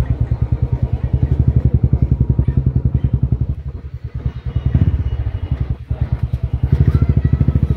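A small engine running with a fast, even chugging beat. It drops in loudness around the middle and picks up again.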